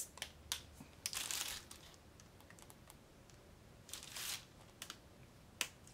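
Clear plastic packaging crinkling and rustling in short, scattered bursts as it is handled, the busiest stretches about a second in and about four seconds in.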